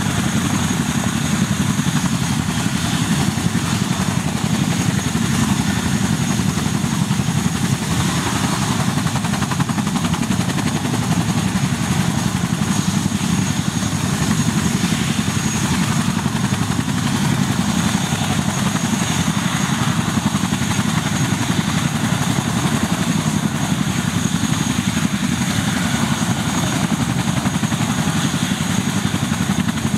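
Boeing Chinook tandem-rotor helicopter running on the ground, its twin Lycoming T55 turboshaft engines driving both rotors. A loud, steady low rotor rumble sits under a high, steady turbine whine.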